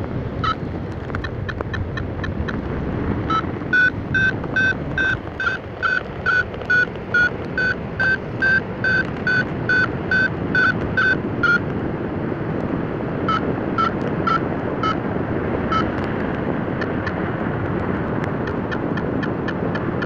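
Paragliding variometer beeping in a steady run of short, high beeps, about two and a half a second, signalling that the glider is climbing in lift; after about 12 seconds the beeps thin out to a few scattered ones as the climb weakens. Wind rushes over the microphone throughout.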